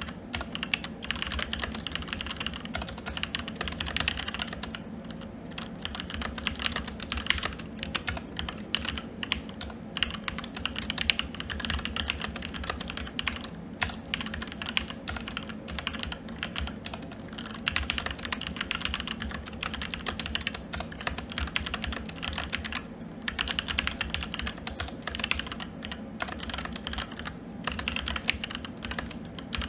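Typing on a SteelSeries Apex 7 TKL mechanical keyboard with red linear switches: a steady stream of rapid keystrokes, broken by a few brief pauses.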